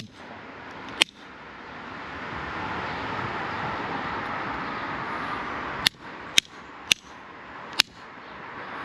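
Channel locks striking soldered copper pipe and fittings with sharp metal-on-metal whacks: one about a second in, then four more in quick succession near the end, over a steady hiss. The solder joints are holding without cracking.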